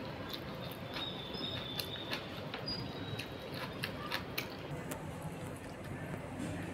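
Eating sounds: a fried puri torn by hand, scooped through curry and chewed, heard as scattered sharp clicks and soft crackles over a steady hiss.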